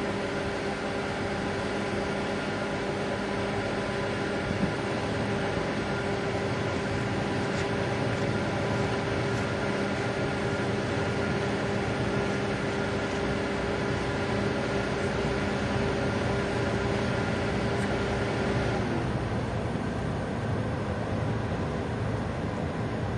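Car ferry's diesel engines running with a steady droning hum. About nineteen seconds in, the tone glides down in pitch and the higher part of the sound falls away.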